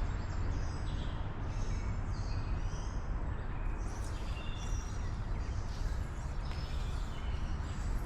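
Songbirds chirping in many short, high calls throughout, over a steady low rumble.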